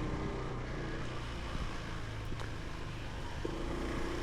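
Motorcycle riding along steadily: a low, steady engine hum under a continuous hiss of road noise.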